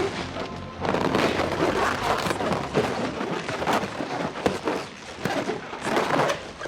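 Dense action sound-effects mix from a film: a continuous wash of rushing, crackling noise with many hits and thuds through it, like a big launch or blast sequence.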